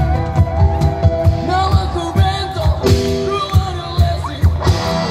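Live band music: a singer over guitar, bass and drums, with a steady beat.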